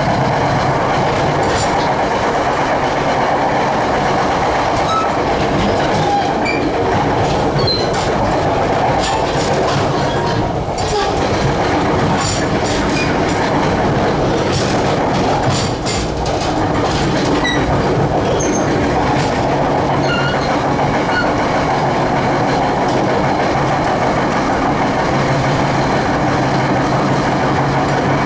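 Passenger train heard from on board while running: a steady rumble of wheels on rail with a low hum, and a run of sharp clicks over rail joints or switches in the middle, with brief high wheel squeals here and there.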